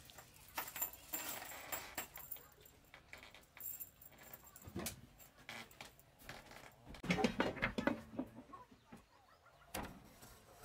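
Knife scraping and clicking against fish and a plastic bag, in quick irregular strokes, followed by scattered knocks and a cluster of heavier thuds on a wooden plank floor.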